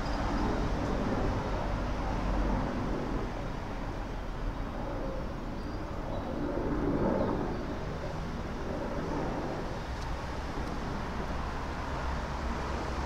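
RAF AgustaWestland Merlin helicopter flying low on final approach: a steady rotor beat over the drone of its three turbine engines, swelling slightly about halfway through.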